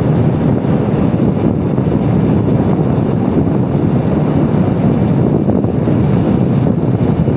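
Steady wind rush over the microphone as a motorbike coasts downhill in neutral with its engine switched off, so no engine note is heard.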